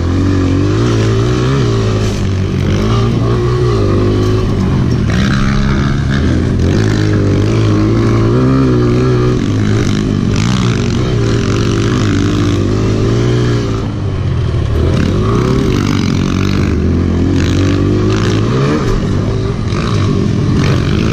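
Kawasaki KLX pit bike's single-cylinder four-stroke engine being ridden hard, revving up and falling back again and again as the throttle opens and closes through the turns, with a short drop in revs about two-thirds through.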